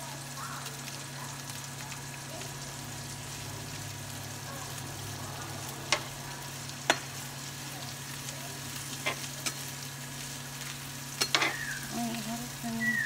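Chopped vegetables sizzling in a frying pan as they are stir-fried with a spatula, with a few sharp clicks of the spatula against the pan about six, seven, nine and eleven seconds in.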